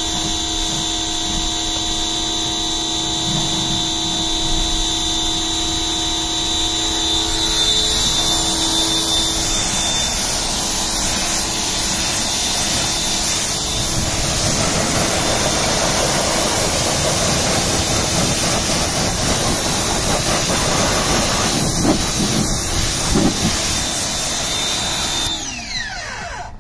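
Ryobi 1800 PSI electric pressure washer running, its motor whining steadily under the hiss of a water jet from a short gun with a 25-degree tip spraying a car's wheel and body. The spray hiss grows louder about eight seconds in and stops shortly before the end.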